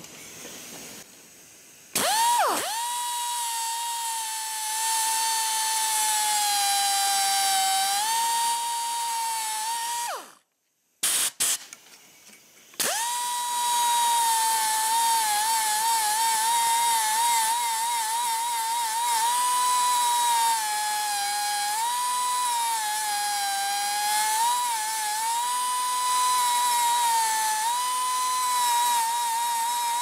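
Air die grinder running at high speed, grinding a steel Lock-N-Stitch pin flush with a cast-iron engine block; its high whine dips and wavers as it bites into the metal. It spins up about two seconds in, stops near the ten-second mark, and spins up again a couple of seconds later.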